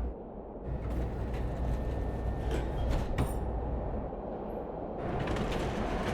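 Chicago L train at a station just after the doors-closing announcement: a few sharp clicks and clunks of the sliding doors shutting over a steady low rumble, then a louder rush of rail noise from about five seconds in.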